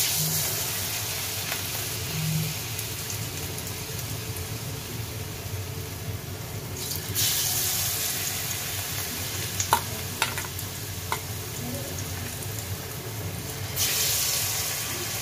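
Besan-battered jackfruit-seed chops deep-frying in hot soybean oil, a steady sizzle that begins sharply as the first piece goes in. The sizzle swells again about seven and fourteen seconds in as more pieces are dropped into the oil, with a few light clicks around ten seconds.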